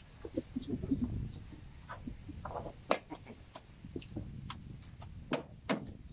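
Small birds chirping in short, repeated high calls. Scattered sharp clicks and taps mix in from eating at the table and from a knife being worked into a spiny sea urchin's shell.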